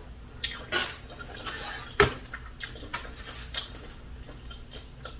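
Small clicks and rustles of hands handling food at a table set with bowls and foam takeout containers, with one sharper knock about two seconds in.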